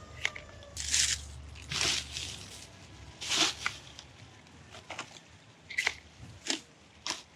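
Litter being gathered up: short crackling rustles and crunches, about six in an irregular series.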